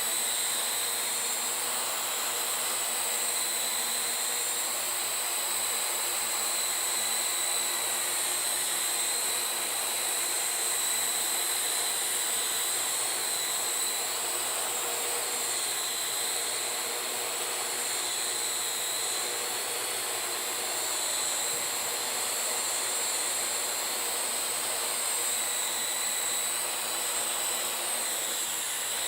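Parrot AR.Drone 2.0 quadcopter's four electric motors and propellers whirring steadily in flight, a constant high-pitched whine over a rushing hiss.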